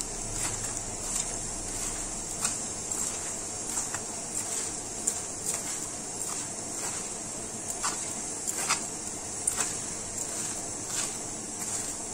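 Hand mixing wheat flour and sugar in a glass bowl: soft rubbing with scattered light ticks at irregular intervals, over a steady background hiss.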